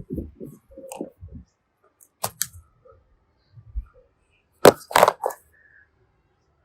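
Small objects being handled: a few soft knocks, then scattered sharp cracks and clicks, the loudest cluster of three or four cracks a little after the middle.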